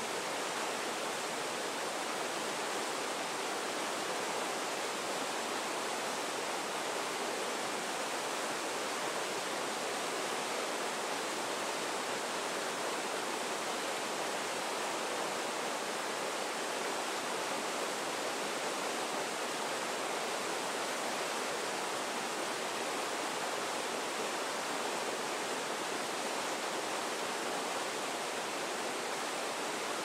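Fast river rapids rushing steadily over boulders, an unbroken wash of whitewater.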